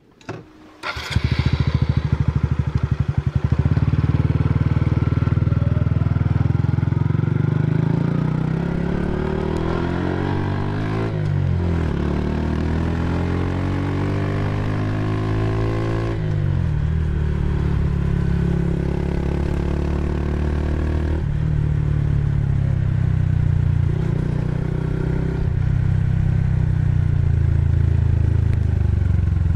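Honda Super Cub C125's single-cylinder four-stroke engine running through a Yoshimura GP-MAGNUM Cyclone muffler while the bike is ridden. The note comes in sharply about a second in, then climbs in pitch under throttle and drops back suddenly a few times, as at gear changes.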